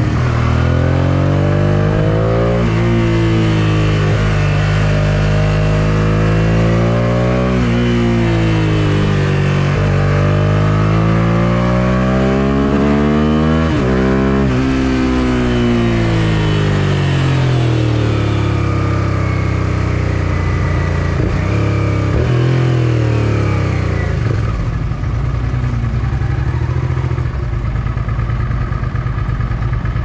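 Suzuki SV650S's 645 cc V-twin with an Akrapovic full exhaust system, its revs rising and falling with the throttle on a winding road, peaking about halfway in. It then winds down over about ten seconds and settles to a steady idle for the last five seconds.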